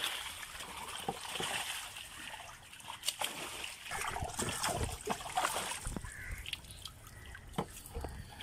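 Water splashing as fish thrash in a landing net being scooped out of the water. After about two seconds it dies down to trickling and dripping, with scattered knocks and clicks.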